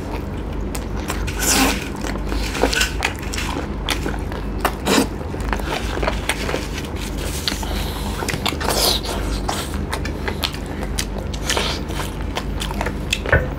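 Two people eating chicken legs and rice with their hands, close to the microphone: chewing, biting and lip smacks with scattered sharp clicks. A steady low hum runs underneath.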